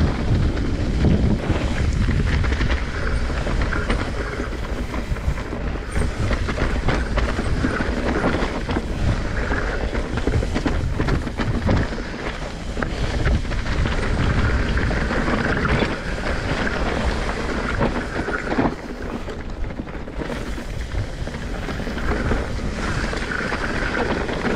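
Mountain bike riding down a dirt trail covered in dry leaves: tyres rolling and crunching over the ground, with constant rattling and knocking from the bike as it runs over bumps and roots, over a low rumble of wind on the microphone.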